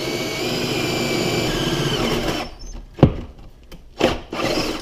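Hitachi cordless drill boring a hole up through the bottom of a wooden kitchen cabinet, its motor running steadily. It stops after about two and a half seconds; a sharp knock follows about half a second later, and there are short bursts of noise near the end.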